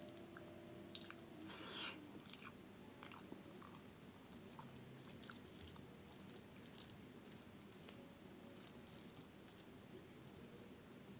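A person chewing and smacking their lips close to the microphone while eating soft rice, mashed potato and omelette, with many short wet clicks at an uneven pace.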